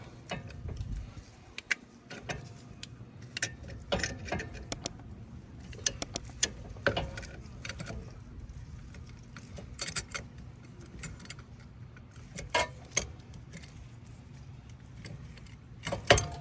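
Scattered metallic clicks and clinks of hand tools and a clamp working on a rear brake caliper as the brake piston is compressed, some in quick clusters.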